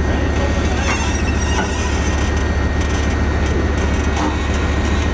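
IS-3 heavy tank's V12 diesel engine running with a deep, fast, even pulsing as the tank creeps backward down the transporter's trailer, with a few short squeaks over it.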